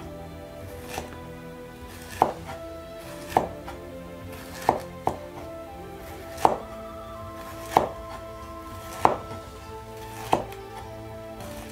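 Kitchen knife slicing a red bell pepper on a wooden cutting board: about nine slow, evenly spaced cuts, each ending in a sharp knock of the blade on the board, roughly one every second and a quarter. Background music plays underneath.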